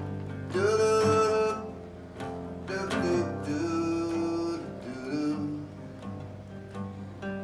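Instrumental passage of a song: guitar accompaniment with a bowed cello playing long melody notes that slide up into pitch.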